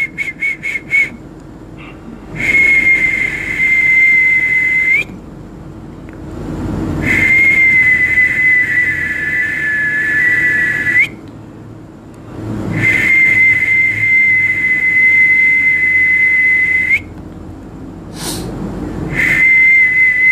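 A person whistling: a quick run of short high pips, then long, steady, high whistled notes of about three to four seconds each, three in a row and a fourth starting near the end, each ending with a slight upward flick and with breaths drawn in between.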